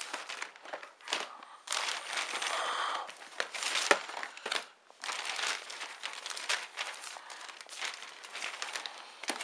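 Thin plastic carrier bag crinkling and rustling in irregular bursts as hands rummage inside it, with brief lulls.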